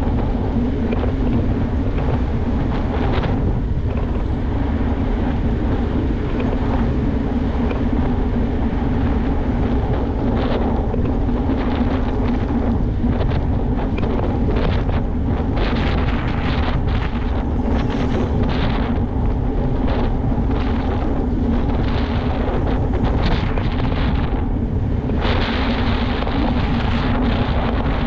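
Wind buffeting a helmet- or bike-mounted GoPro Hero 8's microphone while riding a mountain bike at speed, mixed with a steady rumble of the tyres on asphalt. About 25 seconds in the noise turns brighter and hissier as the bike rolls onto a different stretch of road.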